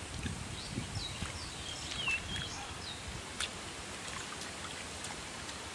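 Bare hands squelching and scooping wet mud and shallow water, with soft splashy thumps in the first second or so. A bird chirps several short falling notes around the middle.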